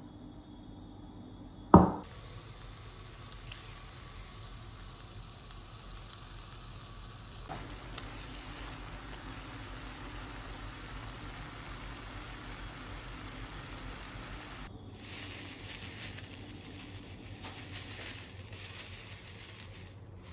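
Thin-sliced marinated beef and onions for bulgogi sizzling in a frying pan, after one sharp knock about two seconds in. Near the end the sizzle swells louder twice.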